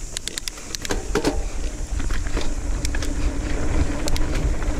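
Nukeproof Scout 275 hardtail mountain bike ridden down a dirt trail: a run of sharp rattling clicks from the bike in the first second or so, then a low wind and tyre rumble that builds from about a second in, with a faint steady hum over it.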